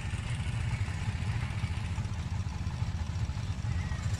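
Small motorcycle engine running at low speed as it is ridden slowly, a steady low rumble.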